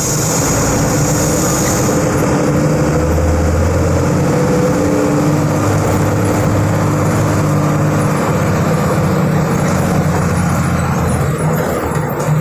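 Volkswagen 17.210 EOD bus's diesel engine running steadily.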